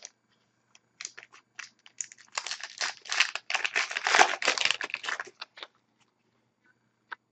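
Plastic wrapper of a hockey card pack crinkling as it is torn open, with a dense run of crackling in the middle and a few lighter rustles and clicks after it.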